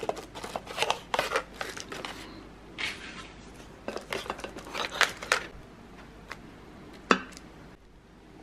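Stiff, dry oven-ready lasagna noodle sheets clicking and scraping against each other and the plastic slow-cooker liner as they are laid in. The sharp clicks come in two clusters, in the first two seconds and around four to five seconds in, with a single louder click about seven seconds in.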